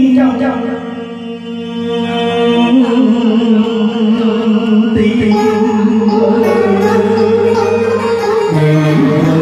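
A man singing a Vietnamese song into a microphone, his held notes wavering, over sustained chords on an electronic keyboard, all amplified through a PA.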